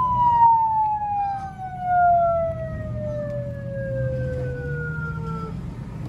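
A siren fitted to a custom Hummer H2 sounds one long tone falling steadily in pitch and cuts off near the end. Underneath it the Hummer's V8 engine runs low as the truck pulls away.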